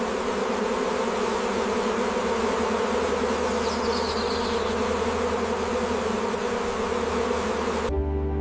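Dense, steady buzzing of a bee swarm, cutting off abruptly just before the end as soft music begins.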